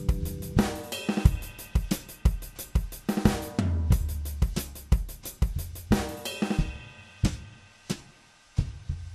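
Background music with a drum kit playing a steady beat over held bass notes, thinning to sparser drum hits near the end.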